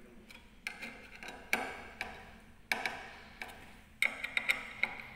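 Sharp metal clicks and knocks of a screwdriver working the screws of a door lock's steel back plate, mounted on a glass door. They come at irregular spacing, about a second apart at first, then several in quick succession about four seconds in.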